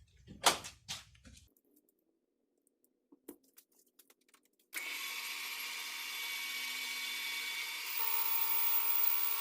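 Lathe running and cutting as a mandrel for pressing in suspension silent blocks is turned, a steady machining noise with held tones that shifts in pitch about three seconds after it starts. A few light knocks and clicks come before it, as the work is set up.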